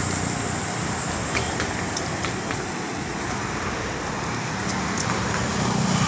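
Steady road traffic noise with a low engine hum that swells near the end, and a few faint clicks.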